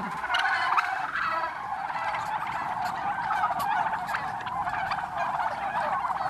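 A large flock of domestic turkeys gobbling and calling all at once, a dense, continuous chatter of overlapping calls.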